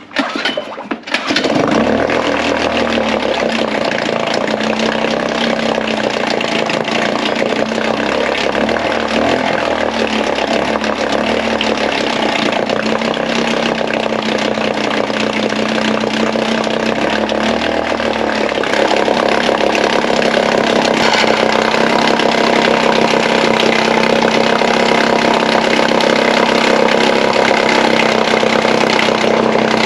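Suzuki DF 2.5 single-cylinder four-stroke outboard starting, catching about a second in and then running steadily with its lower unit in a water bucket. It gets a step louder about 18 seconds in. The motor is warming up on its newly fitted larger jets (#66 main, #34 pilot) before the idle mixture screw is adjusted.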